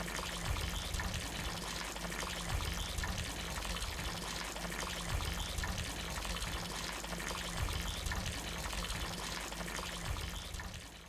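Water pouring steadily in a stream from a fog collector's outlet hose, with a low surge about every two and a half seconds; it fades out at the end.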